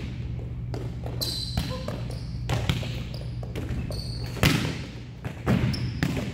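Volleyballs being struck and bouncing on a tiled sport-court floor: a series of sharp smacks, the loudest about four and a half seconds in, with short high sneaker squeaks between them. A steady low hum runs underneath.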